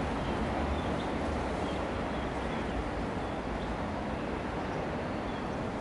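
Steady outdoor background noise, a low rumble with a hiss over it, and faint high bird chirps every so often.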